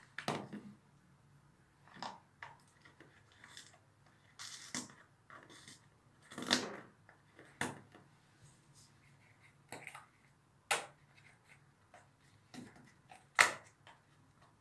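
Handling noise from a cylindrical canister worked by hand next to a dog: irregular sharp clicks and knocks a second or two apart, the loudest near the end.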